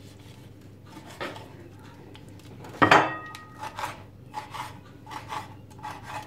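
Chef's knife cutting a red pepper on a wooden cutting board: a single knock about a second in, a loud sharp clack with a short metallic ring a little before halfway, then a quick run of chopping strokes, about three or four a second.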